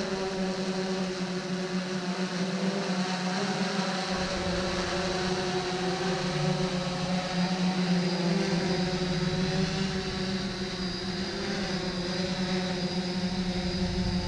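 Small quadcopter drone's motors and propellers buzzing steadily in flight, the pitch wavering slightly; a low rumble joins about four seconds in.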